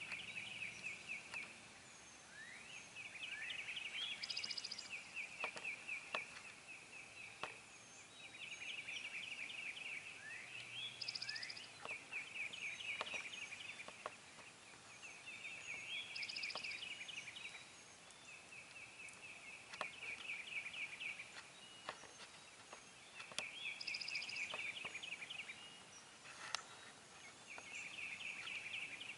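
Wild turkey gobblers gobbling repeatedly and faintly, a rattling call every few seconds, with a few short sharp clicks in between.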